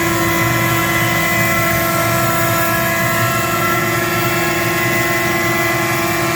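Router spindle on an Avid CNC machine running steadily while surfacing the waste board: a constant whine with a steady hiss of cutting.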